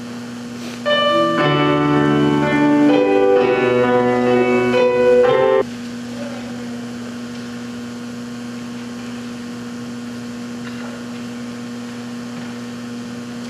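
A short passage of held keyboard chords, the notes sustained without fading and changing pitch in steps, that cuts off abruptly about five and a half seconds in. A steady hum runs underneath and continues after the music stops.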